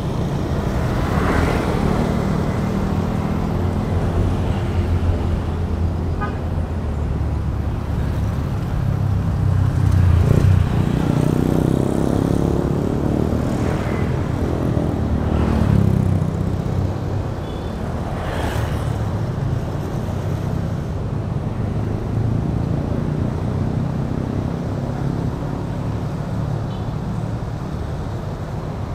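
Street traffic dominated by motorbikes and scooters passing close by, engines swelling and fading as each goes past, loudest about ten seconds in and again around sixteen seconds.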